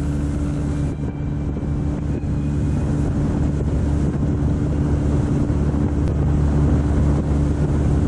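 Motorboat engine running steadily as the boat cruises, a low even hum under a continuous hiss of water and air, growing slightly louder.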